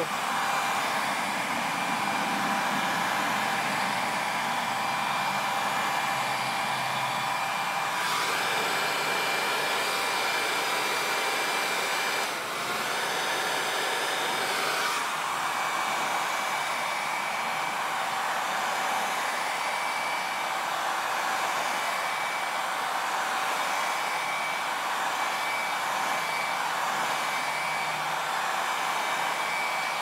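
Small portable hair dryer running steadily, blowing air on a telescope's corrector plate to clear dew; a steady rush of air with a motor whine, its tone changing for a few seconds around the middle.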